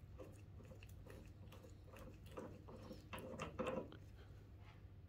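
Faint metallic clicks and scrapes as the locking nut is spun by hand off the threaded front wheel spindle of a Fordson Major tractor, a little louder about three seconds in as it comes free.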